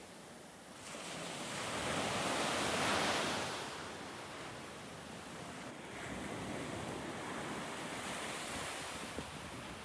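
Sea waves washing onto a sandy beach: the surf swells about a second in, is loudest around three seconds, then settles into a steady wash.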